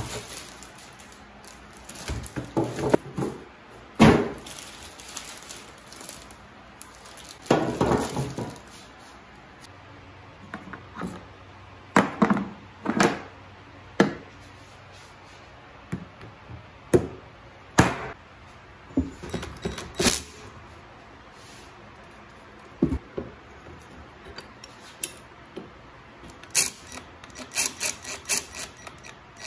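Irregular knocks, clacks and plastic crinkling from handling the parts and packaging of a DeWalt DW735X thickness planer on a workbench. Near the end comes a quick run of small clicks as the height-crank handle is screwed onto the planer.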